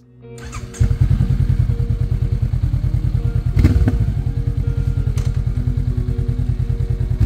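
Honda CB500X parallel-twin engine starting about a second in and settling into an even, rapid idle, with a couple of light clicks partway through.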